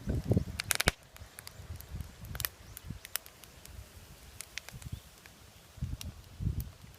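Campfire wood crackling, with scattered sharp pops and ticks. Low rustling rumbles are heard at the start and again about six seconds in.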